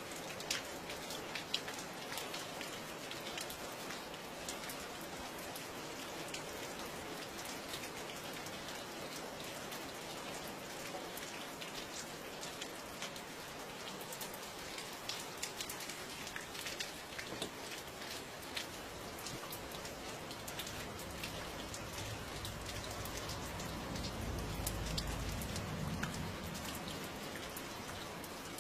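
Steady rain falling, with many individual drops ticking close by. A low rumble swells and fades about three-quarters of the way through.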